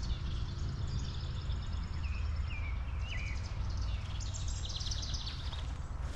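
Several songbirds calling: short chirps with quick pitch slides in the middle and rapid high trills near the end, over a steady low rumble.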